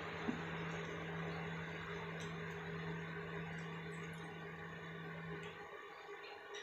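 A steady mechanical hum with a hiss over it, like a running fan or appliance, which cuts off suddenly near the end. A few faint light clicks sound over it.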